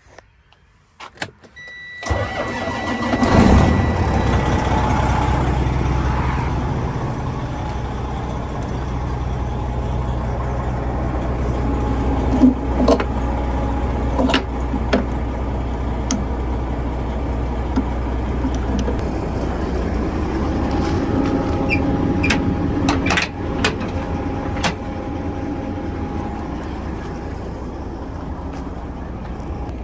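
Freightliner Coronado semi truck's diesel engine starting about two seconds in, then idling steadily, with a steady high beep for the first few seconds after it starts. Midway, a few sharp metallic clanks sound as the fifth-wheel release handle is pulled.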